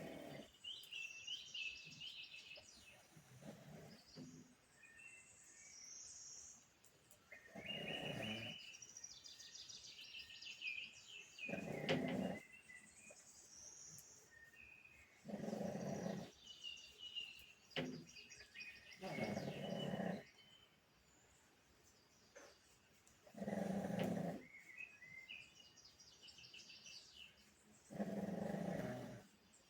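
Pug snoring in its sleep, a rough snore about every four seconds. Birds chirp faintly between the snores.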